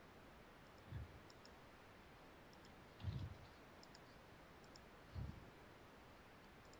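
Near silence on a meeting call, with faint scattered clicks and three soft, low thumps about two seconds apart.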